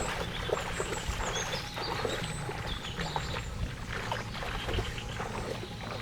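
Water splashing and sloshing in many small irregular strokes, with birds chirping in short high calls over it.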